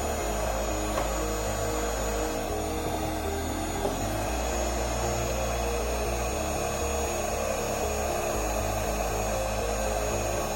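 Heat gun blowing steadily, shrinking heat-shrink tubing.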